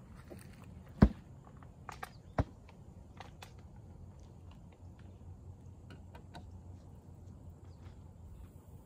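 Sharp knocks on a canoe as an angler shifts about and works a rod and reel against a hooked fish. Two louder knocks come about a second in and a second and a half later, then lighter clicks and taps, over a low steady rumble.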